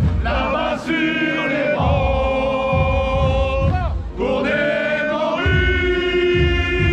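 Crowd of carnival-goers singing a chant together in long held notes, each note sliding in at its start, over a low repeated beat.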